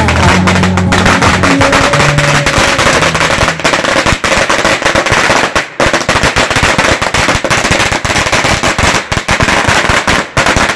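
A long string of firecrackers going off in a dense, irregular rattle of sharp bangs that hardly pauses. Music is faintly audible under the first couple of seconds.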